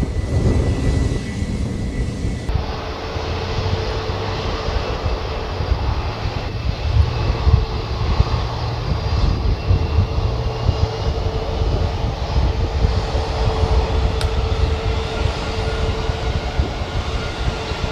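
Jet airliner engines running: a loud deep rumble throughout. A steady hum and faint high whining tones come in about two and a half seconds in.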